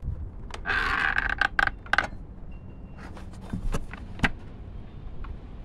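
Orange plastic oil-fill cap with dipstick being screwed into the mower engine's oil filler: a scratchy scraping with clicks as the threads turn. A few sharp plastic clicks and taps follow, the loudest about four seconds in.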